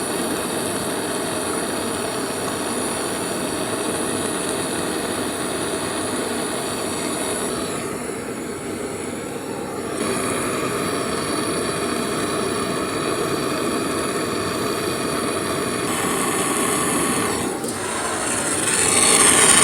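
Handheld gas soldering torch flame hissing steadily while it heats a section of wet copper pipe to drive out the water left inside. It dips slightly about eight seconds in and grows louder near the end.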